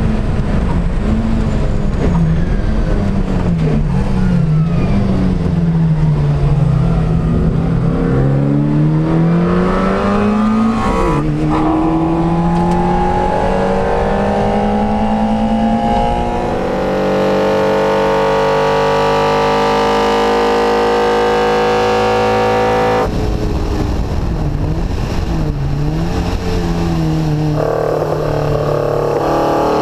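NSU TT's rear-mounted air-cooled four-cylinder racing engine on Weber carburettors, heard from inside the cabin at race pace. The hammering intake note falls and climbs with braking, gearchanges and acceleration, then climbs into a long, steady high-revving pull. About three quarters of the way in, the sound changes abruptly to a lower, wavering engine note.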